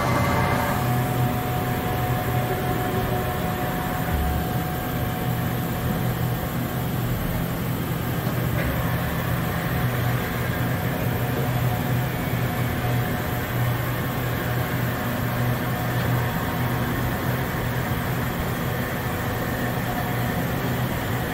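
Steady low hum of running shop machinery.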